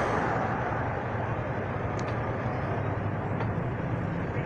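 Kawasaki Fury 125 underbone motorcycle's small single-cylinder two-stroke engine running steadily while riding slowly, under a steady rush of road and wind noise.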